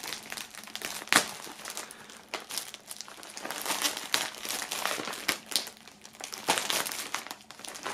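Thin black plastic bag crinkling and crackling as it is held and slit open with a knife, in irregular crackles, the sharpest about a second in.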